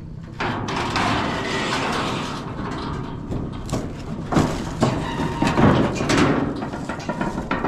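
Steel stock trailer gate rattling and clanging as it swings open, then a bull's hooves knocking on the trailer floor as it steps out, with several loud knocks near the middle.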